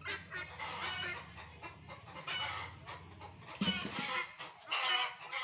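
Guineafowl calling: a rapid, continuous run of harsh, grating repeated calls.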